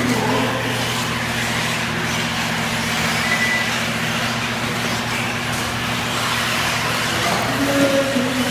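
Steady noise of electric 1:8 off-road RC buggies running: a hiss with a low steady hum beneath it. A short high beep comes a little over three seconds in.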